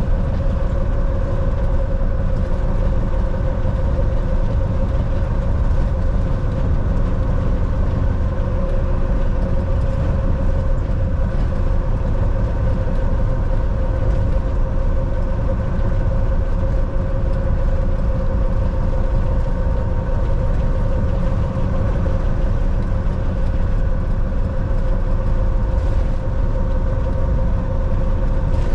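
Volvo semi truck driving: a steady drone of engine and road noise, a low rumble with a few constant tones above it that does not change.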